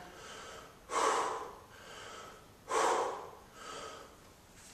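A man breathing hard through the mouth while snatching a heavy kettlebell, with a sharp, loud exhale about every two seconds in time with the reps and softer breaths in between.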